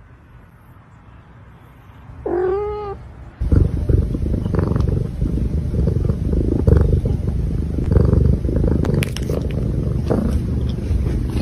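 A domestic cat gives one short meow, then a little over three seconds in, a loud, close purr starts suddenly and carries on as a steady low rumble.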